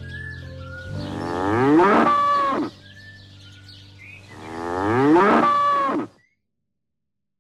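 Cattle mooing: two long moos, each about two seconds, rising and then falling in pitch. The sound cuts off to silence near the end.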